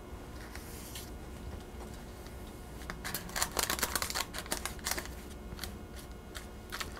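Papery crackling and rustling of a sheet of phyllo dough being smoothed and brushed with melted butter using a pastry brush. A run of quick, crisp crackles starts about three seconds in and eases off after a couple of seconds.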